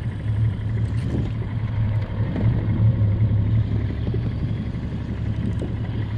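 Small skiff's outboard motor running steadily, a constant low hum with rumble.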